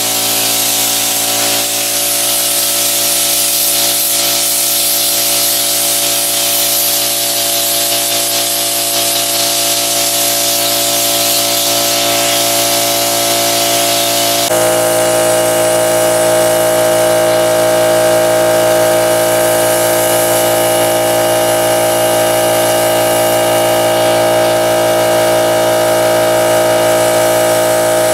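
Air spray gun hissing steadily as contact adhesive is sprayed over the roof's foam padding, over the constant-pitch hum of the air compressor feeding it. About halfway through the hiss eases and the hum grows louder.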